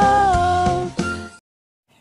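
Background music: a melody over a steady beat, ending about a second and a half in.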